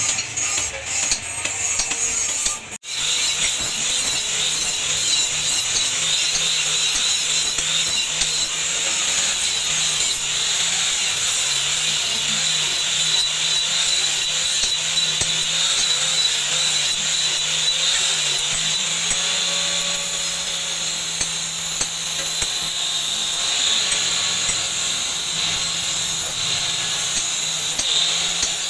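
Handheld angle grinder running steadily, its disc grinding the steel blade of a meat cleaver with a constant motor hum and a high hiss of abrasive on metal. It starts after a sudden break about three seconds in.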